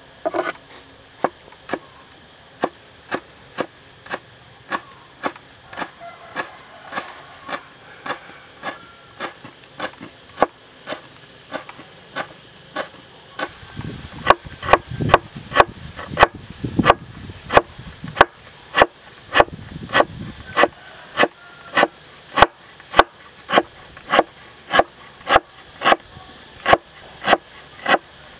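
Cleaver chopping on a wooden cutting board: a steady run of knife strikes, about two a second, that grows louder and a little quicker about halfway through as the blade slices galangal root.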